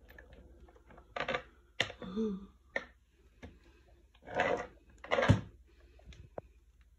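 Child's plastic kick scooter being pushed and knocked about on a hard floor: a string of separate plastic clacks and rattles, the loudest a heavy knock about five seconds in.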